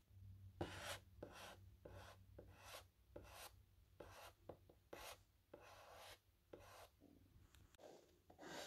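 Faint, scratchy strokes of a drawing tool rubbing across paper, about two a second.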